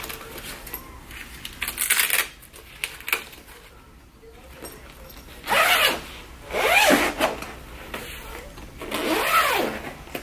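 The ring light's carrying case and packaging being handled and opened: a few separate bursts of rustling and scraping. In the second half comes a run of sweeping, zip-like sounds.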